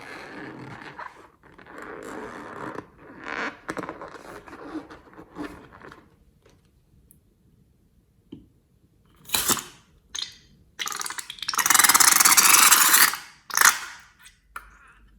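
Slime being squished and stretched, giving a sticky, crackly squelching for the first several seconds. After a pause come a few short hissing bursts and one loud hiss of about two seconds.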